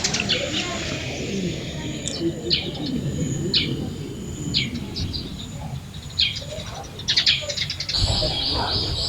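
Small birds chirping in short, high, separate calls about a second apart, over a low murmur of voices in the background. About a second before the end, a fast run of repeated high notes begins.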